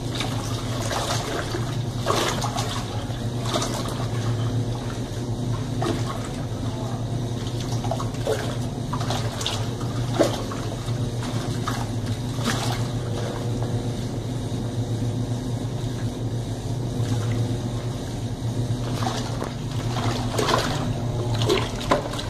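Colormaq Pioneer tanquinho washer agitating its wash load: a steady motor hum under churning, splashing soapy water.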